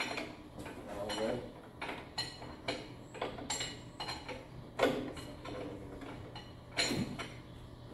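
Irregular metal clanks and knocks, a few ringing briefly, from parts and tools during the fitting of a rebuilt engine into a tractor. A steady low hum runs underneath.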